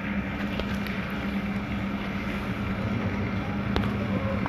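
Steady low hum over a constant background noise, with a couple of faint clicks near the end.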